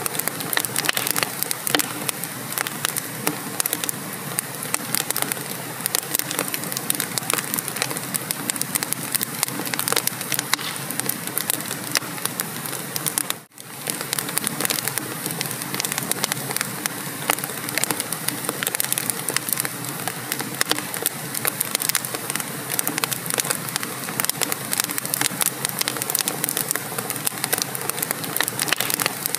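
Wood fire burning in a fireplace, crackling and popping with dense irregular snaps, broken by a brief gap of near silence about halfway through.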